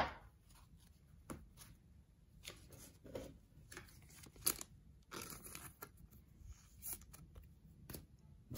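Faint scattered clicks and brief rustles of 1990 Fleer baseball cards being handled, slid against one another and set down.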